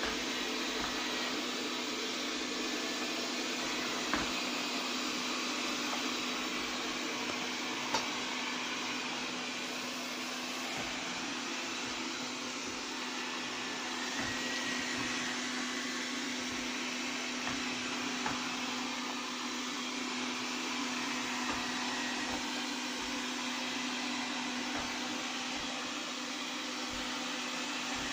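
Xiaomi Mi Robot Vacuum-Mop P running steadily: an even hiss with a constant hum, and a few light clicks along the way.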